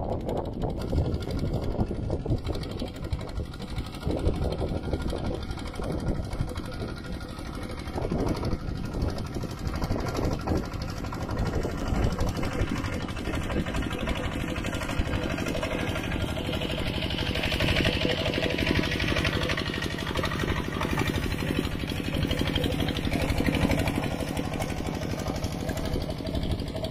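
Engine of a two-wheel walking tractor running steadily under load as it plows through flooded paddy mud.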